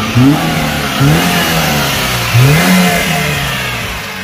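Maruti Suzuki Zen's 1000cc inline-four petrol engine revving up as the car accelerates, its note rising three times and settling after each rise. It is still on its stock silencer.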